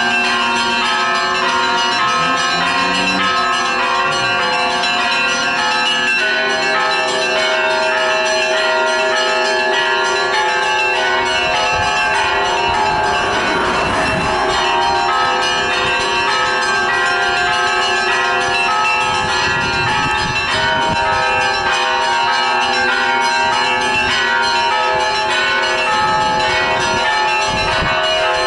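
Church bells ringing in a continuous peal: several bells of different pitches struck over and over, their tones overlapping without a break.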